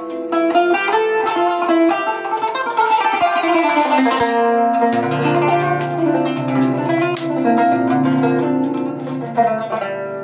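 Kanun (Turkish plucked zither) played solo in an improvised taksim in makam Nihavend: quick plucked runs, then from about halfway repeated plucking on low bass notes beneath the melody.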